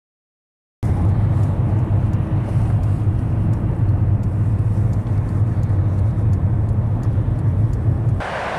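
Steady low rumble of road and engine noise in a moving car at highway speed, starting abruptly about a second in. Near the end it cuts suddenly to a quieter, higher, even hiss.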